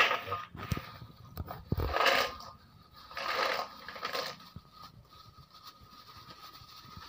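Paddy-field snails poured from a plastic bag into a stainless steel bowl: the shells clatter against the metal and each other in three or four bursts as the bag is shaken, loudest about two seconds in, with the plastic bag rustling.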